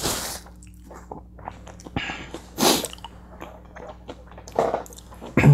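Close-miked mouth sounds of a man between bites of a burrito: a paper napkin rustling against his mouth at the start, then soft lip smacks and clicks, a couple of breaths through the nose, and a short low vocal sound at the very end.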